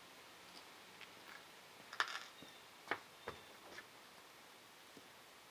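A few light clicks and taps from small bicycle pedal parts and tools being handled during a pedal service, the sharpest about two seconds in, with three more over the next two seconds.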